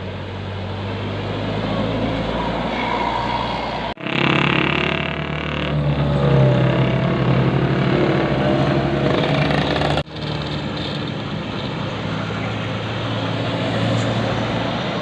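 Bus engines running in traffic, in three clips cut together abruptly about four and ten seconds in. The middle clip is the loudest.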